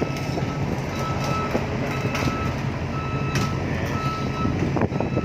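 Vehicle reversing alarm beeping at about one beep a second over the steady low running of a diesel engine, as a vehicle or piece of heavy equipment backs up during ferry unloading.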